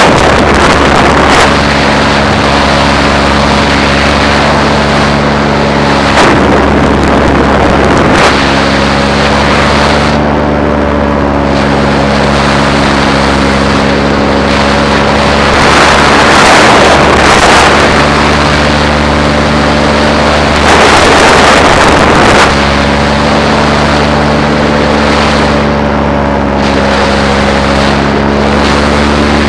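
Paramotor's two-stroke engine running steadily at a constant throttle, with gusts of wind rushing over the microphone every few seconds.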